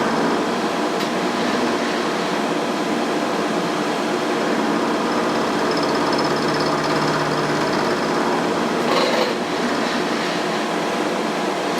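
Milling machine running steadily with its spindle turning, taking light cuts along the edge of steel stock, with a brief hiss about nine seconds in.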